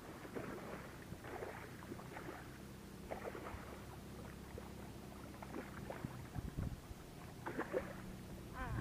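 Water splashing and lapping over a steady low motor hum; the hum fades out about six seconds in.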